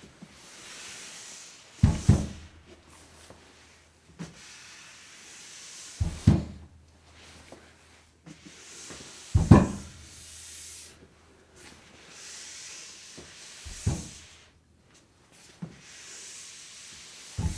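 Shoes sliding and skidding across a floor, repeated several times: each slide is a soft scraping hiss lasting a second or two and ends in a sharp thump, about every three to four seconds.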